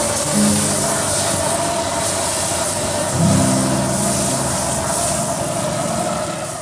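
Steady hiss and roar of a street-food grill as flames flare up over the hot griddle, with low sustained tones swelling over it twice, about half a second and three seconds in. It fades out at the very end.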